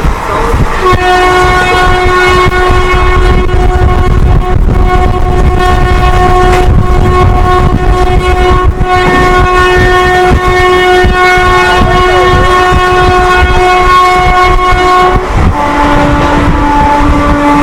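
WAP-4 electric locomotive's twin-tone horn sounding one long high note for about fourteen seconds, then switching to its lower note near the end, over the loud rumble and clatter of the train running at speed.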